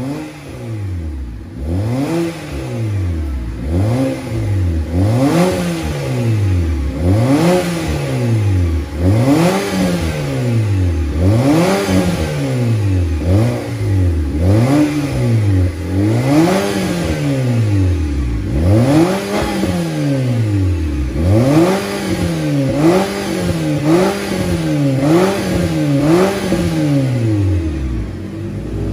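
Nissan X-Trail's four-cylinder engine heard through an aftermarket cat-back exhaust with quad tips, revved at standstill in repeated blips. Each rev rises and falls back, roughly one a second or a little slower, coming quicker in the last few seconds.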